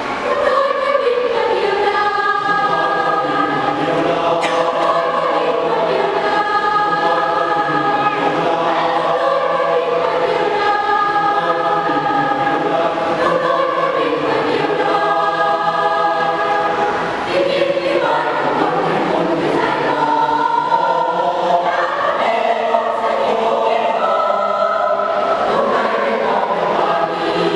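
A school choir singing in several-part harmony, holding sustained notes that change every second or so.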